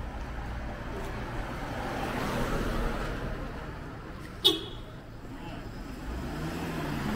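Light street traffic: a car's engine and tyres on asphalt, swelling and then easing off. A single sharp clack comes about four and a half seconds in.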